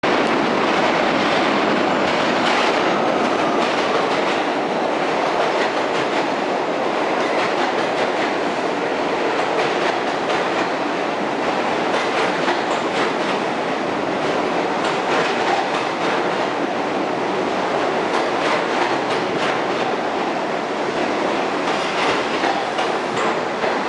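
New York City Subway R68 train with Westinghouse propulsion running into the station, a steady rumble of steel wheels on rail with a rapid clatter of clicks over the rail joints.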